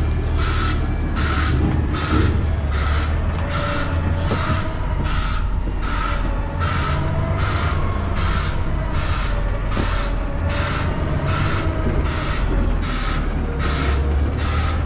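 Semi truck's diesel engine running with a low rumble while a reversing alarm beeps in a steady, fast rhythm, a little under two beeps a second, as the rig backs up.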